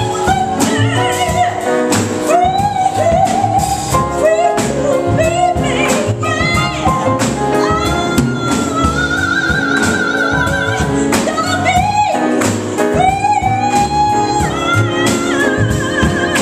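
A woman singing live with a jazz piano trio of grand piano, upright acoustic bass and drums, holding one long note near the middle.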